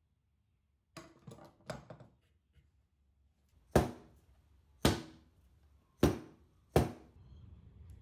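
Wooden joiner's mallet striking a hardwood stool top four times, about a second apart, each a sharp knock, knocking the top down onto its base. Before the blows come a few light clicks and knocks, and a faint low hum starts near the end.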